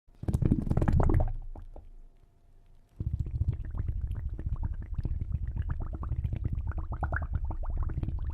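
Bubbles in water: a loud burst of bubbling in the first second that dies away, then from about three seconds in a steady, dense stream of small bubbles, each a short rising blip.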